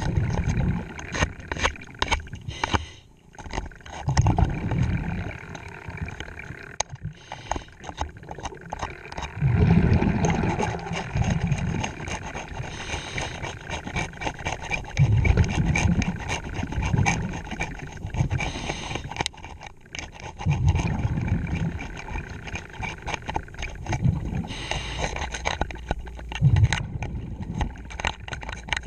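Underwater sound of a diver breathing on a regulator, with a low bubbling rumble of exhaled air about every five seconds. Between the breaths comes a steady run of clicking and scraping from a metal scraper blade working fouling off a boat's underwater fitting.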